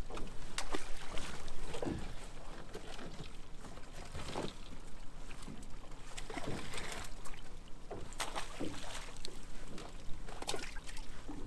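Scattered clicks, knocks and rattles of a wire-mesh crab pot being handled and shaken to empty crabs back into the sea, over a steady background of water and boat noise.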